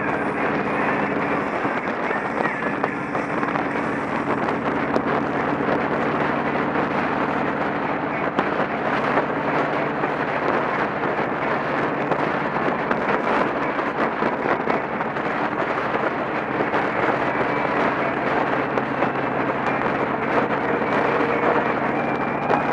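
Motorcycle riding at highway speed: heavy wind rush buffeting the camera microphone, with a steady engine drone underneath.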